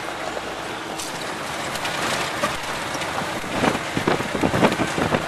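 Land Rover off-roader driving on a rough, stony dirt track, heard from inside the cabin: a steady rushing noise, then from about three and a half seconds in a run of knocks and rattles as it jolts over the stones.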